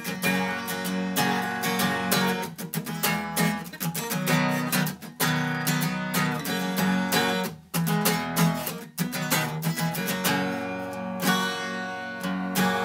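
Background music: an acoustic guitar strummed in a steady rhythm, an instrumental passage of a song with no singing.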